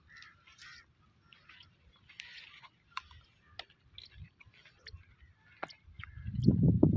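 Quiet outdoor ambience with faint, scattered small chirps and ticks. Near the end a loud, irregular low rumble rises and covers everything else.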